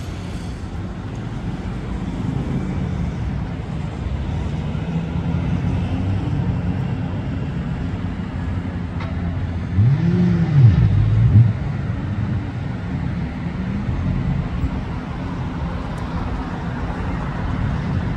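Sports car engines running hard on the street, a steady low rumble throughout. About ten seconds in, one engine revs sharply up and down twice, the loudest moment, as a car drifts.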